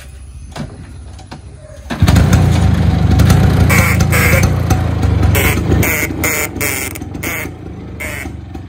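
Bajaj Chetak scooter's two-stroke engine starting up about two seconds in and running loudly, easing off a little later. Over it, the scooter's horn gives about eight short honks in quick succession.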